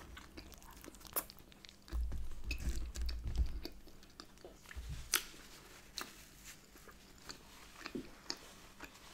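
Close-miked biting and chewing of a soft bagel filled with smoked salmon and cream cheese: mouth clicks and wet chewing sounds scattered through, with a louder low muffled rumble about two seconds in that lasts a second and a half.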